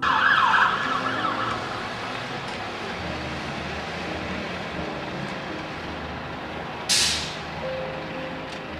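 Emergency vehicle siren wailing loudly for the first second or so, then fading under steady background noise. A sudden short hiss about seven seconds in.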